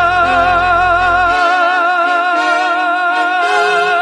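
Musical-theatre song: a singer holds one long note with vibrato over instrumental accompaniment, the bass of which drops away about a second and a half in.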